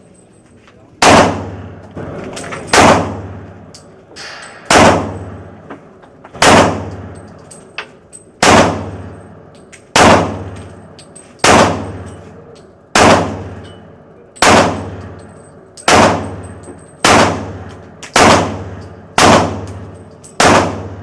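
Handgun shots fired at paper and stuffed-animal targets, about fourteen single shots spaced one to two seconds apart, each with a short echoing tail.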